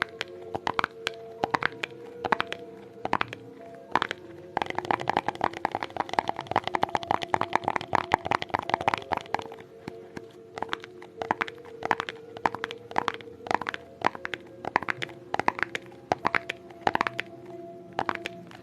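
ASMR tapping: quick, sharp taps throughout, breaking into a dense, rapid flurry for several seconds in the middle. Soft background music with sustained notes plays underneath.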